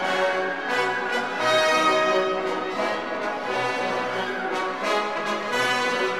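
Orchestral background music with brass instruments prominent, playing sustained notes.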